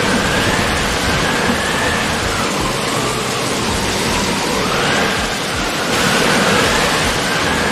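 Strong, gusting storm wind blowing over the microphone in a steady loud rush, with a faint high whistle that rises and falls a few times.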